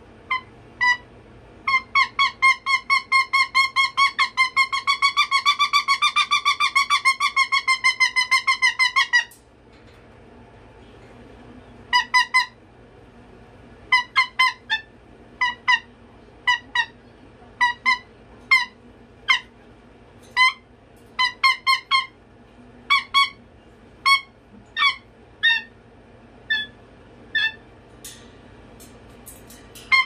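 Moluccan cockatoo calling loudly. It gives a fast run of short, sharp honks, about five a second, lasting several seconds. After a pause it goes on with single and paired calls at irregular intervals.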